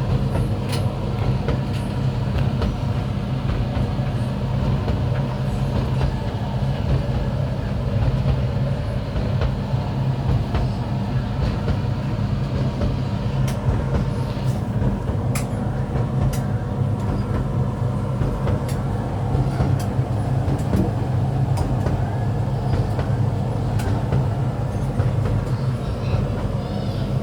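Hoover H-Dry 600 heat pump tumble dryer running steadily in the last minutes of its extra dry cycle: a constant low hum with the drum rumbling, and a few light clicks about halfway through.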